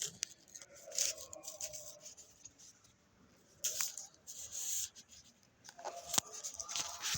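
Intermittent rustling and scraping in three short spells, with a few sharp clicks.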